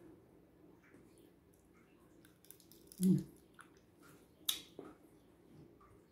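A person chewing dried salted fish and fried rice with the mouth close to the microphone: faint wet mouth clicks and smacks, with a short louder mouth sound about three seconds in and a sharp click about a second and a half later.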